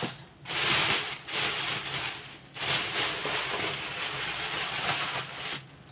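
Thin plastic shopping bag rustling and crinkling as it is handled, in two long stretches with a short break between.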